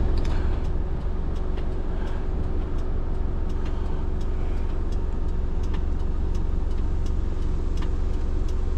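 A car engine idling steadily, a low rumble with a constant hum over it and a few light clicks scattered through.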